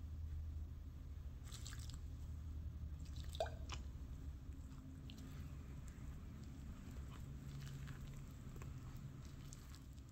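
Silicone spatula stirring sticky, shaggy pizza dough in a ceramic bowl: soft squishing and scraping with scattered small ticks, and a sharper click about three and a half seconds in. A steady low hum runs underneath.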